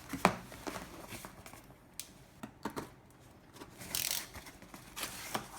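Cardboard packaging being handled and opened: scattered sharp taps and knocks, with a short scraping rustle about four seconds in.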